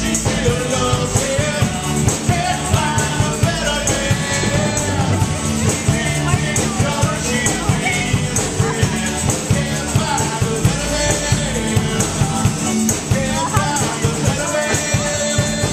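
Live acoustic rock music: a strummed acoustic guitar with a lead melody line at the microphone, played without a break.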